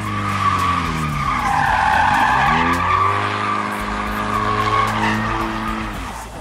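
Car doing donuts: the engine revs rise and fall while the tyres squeal and skid, with the squeal loudest a couple of seconds in.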